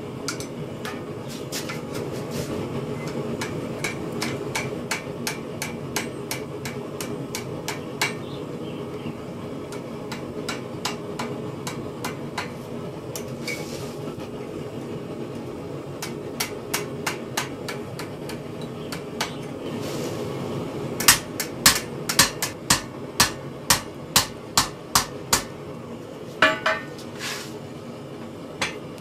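Hand hammer doing repoussé work on a sheet-steel acanthus leaf over a stake. First comes a long run of light, quick taps, then about a dozen louder blows roughly two a second in the last third, over a steady low hum.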